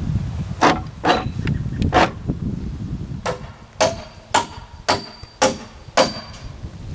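A hammer driving nails into deck framing lumber: three blows, then a steady run of six at about two a second, the later ones with a faint metallic ring. A low rumble underlies the first few seconds.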